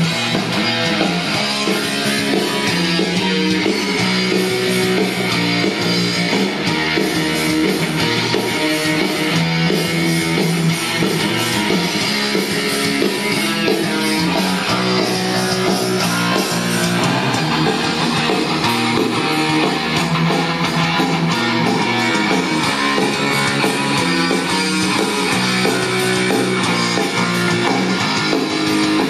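Music with guitar playing back from a cassette on a Technics RS-TR170 double cassette deck, heard over loudspeakers.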